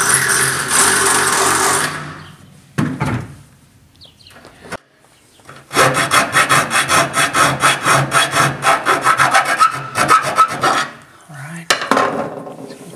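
A cordless drill runs steadily for about two seconds and stops. After a knock and a pause, a hand file rasps back and forth in a small square hole in the truck bed's metal wall, about five strokes a second, with a short second run of strokes near the end, enlarging the mounting hole for an LED bed light.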